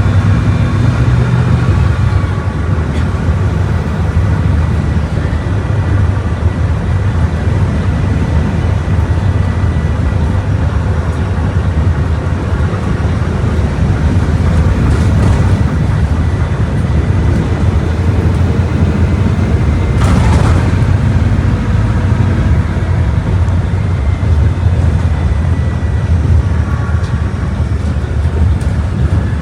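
Volkswagen Volksbus 17.230 Euro VI bus's diesel engine running steadily under way, a deep drone with a brief sharp knock or clack about twenty seconds in.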